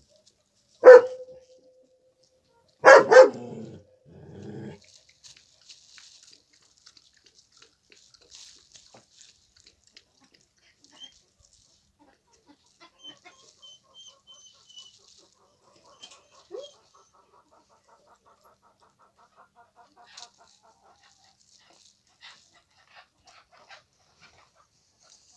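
A dog barks once, loud and sharp, about a second in, then twice in quick succession around three seconds in. After that only faint scattered ticks and rustles.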